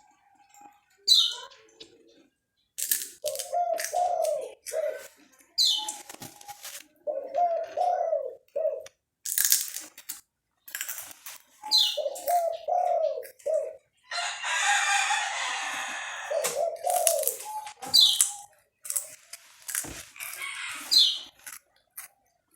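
Chickens calling in drawn-out, rising-and-falling calls every few seconds, while a small bird gives short high chirps that slide downward, about five of them. Scattered sharp clicks come in between.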